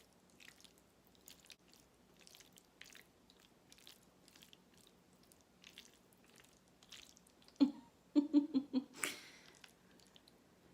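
Close-up chewing of creamy, cheesy Alfredo pasta: soft wet mouth clicks and smacking. About eight seconds in come a few short hums, the loudest part, followed by a brief louder rustle.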